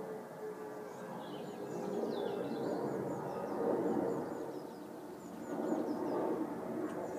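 Small birds chirping over and over above a steady outdoor background hum.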